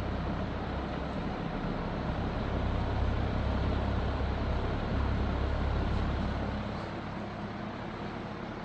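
Vintage Artic Aire model 2077 box fan running: a steady rush of air from the blades with a low rumble that eases off about seven seconds in.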